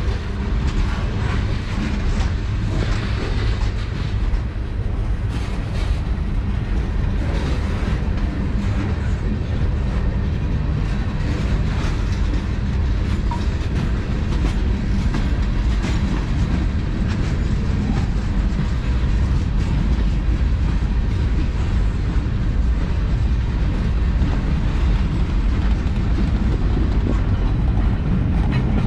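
Freight cars of a long manifest train rolling slowly past: a steady low rumble of steel wheels on rail, with occasional clicks.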